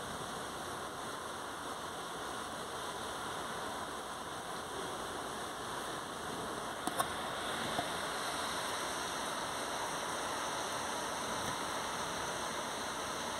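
Steady rain falling on roofs and streets, a continuous even hiss, with a few brief ticks about seven seconds in.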